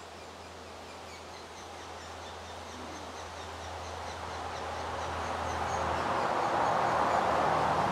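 Steady low hum of an open honey bee colony, calm rather than agitated, with a bird chirping about twice a second in the background. A rushing noise grows louder through the second half.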